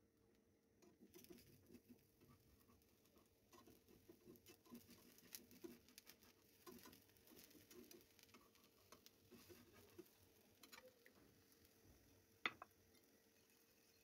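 Faint, irregular crackling of an egg and spinach omelette frying in oil in a nonstick pan, with a spatula working at it, and one sharp click near the end.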